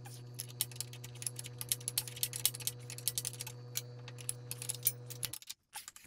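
Light metallic clicks and clinks of steel parts being worked back into the lower die seat of a Beaudry Peerless power hammer, over a steady low hum. The sounds stop abruptly about five seconds in.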